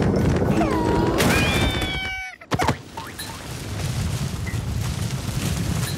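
Cartoon sound effects: a character's voice rises into a held cry that cuts off abruptly about two seconds in. About half a second later comes a single sharp thud, as of a fall or landing.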